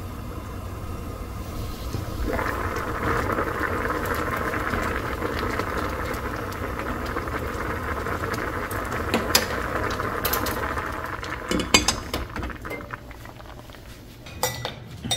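Doenjang jjigae boiling hard in an earthenware pot, a dense bubbling that grows louder about two seconds in and dies away after about twelve seconds. A few light knocks of a wooden spoon come in the second half.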